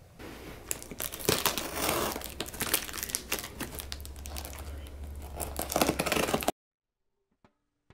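Plastic packing tape on a cardboard box being cut and torn open, a dense crackling with many sharp clicks, which stops abruptly about six and a half seconds in.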